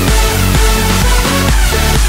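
Electronic dance music with a steady beat and a heavy bass line.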